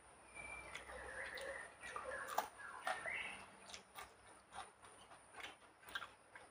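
Faint wet chewing and lip-smacking: a person eating rice by hand and biting into a raw green chilli, making short clicks a few times a second.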